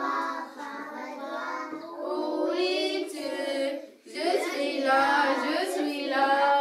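Young children singing a song together, in held sung notes with a short break about four seconds in.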